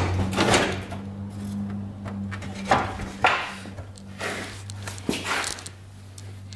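A few light knocks and soft rustles of handling over a steady low hum.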